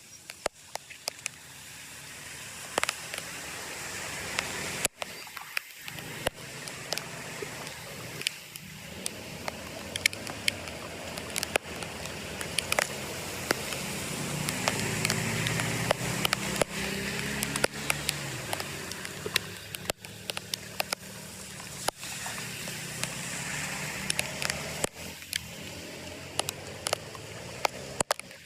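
Flood water rushing and draining, with many sharp crackling clicks throughout. A low drone swells in about halfway through and fades again.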